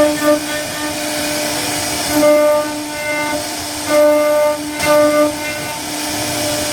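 CNC wood router's spindle running at a steady, high hum while the bit carves wood, a harsher cutting tone cutting in and out every half second or so as the bit bites.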